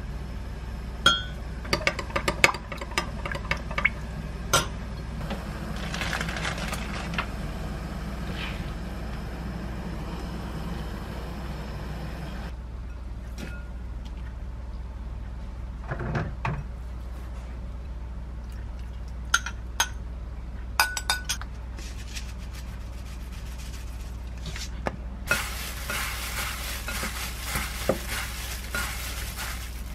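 A metal spoon clinking against a glass mug as a sauce is stirred, a quick run of sharp clinks in the first few seconds. Later, plastic-gloved hands mix noodles with the sauce in a glass bowl, a steady rustling starting a few seconds before the end.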